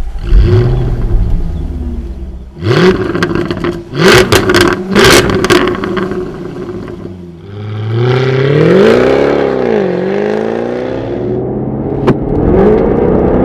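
Jaguar F-Type R's supercharged 5.0-litre V8 firing up with a flare of revs, then blipped several times with sharp crackles from the exhaust. Next comes one longer rev that rises and falls. Near the end the engine note starts climbing again as the car pulls away from standstill under full acceleration.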